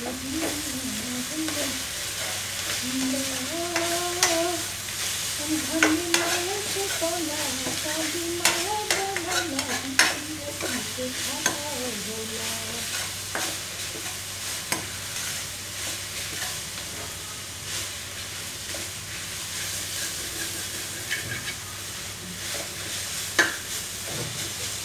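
Gundruk curry frying in an aluminium kadai, stirred with a steel ladle: a steady sizzle with the ladle scraping and clinking against the pan again and again.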